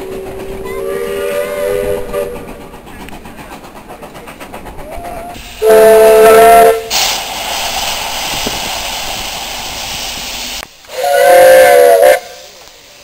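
Steam locomotive whistles from three different engines: a quieter, more distant whistle over the first couple of seconds, a loud shrill whistle about six seconds in followed by a few seconds of hissing steam, and another loud whistle near the end.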